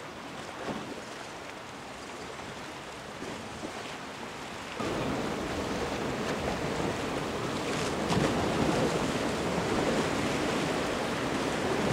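Sea waves washing against rocks, with wind buffeting the microphone; the noise jumps louder about five seconds in.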